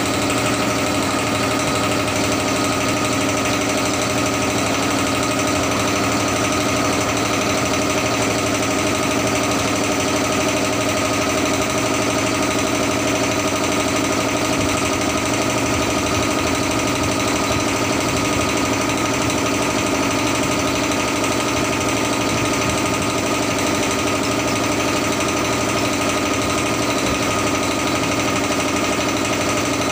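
A machine running at a steady, unchanging drone made of several held tones.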